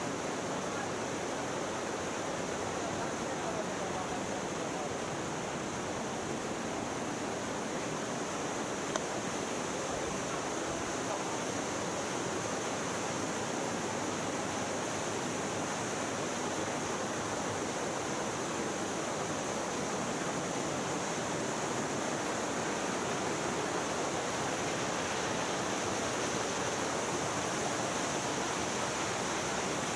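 Mountain stream rushing over rocks and small cascades in a narrow limestone canyon, a steady even rush that grows a little louder in the second half.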